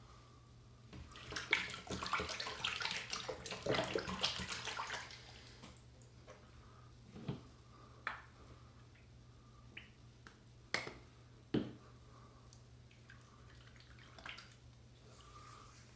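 Wet, slick rubbing and squelching of pre-shave lubricant being worked in by hand for about four seconds, then several sharp clicks a second or more apart.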